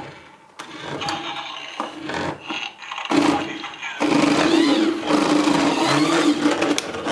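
Dickie Toys police car's electronic engine and siren sound effect playing from its small built-in speaker. It starts quietly with a short burst about three seconds in, then comes in loud and steady about four seconds in, with wavering siren tones over it.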